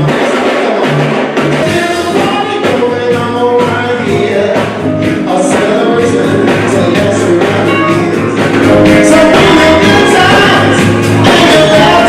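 Live band playing a popular old song, with a lead singer over a steady drum beat.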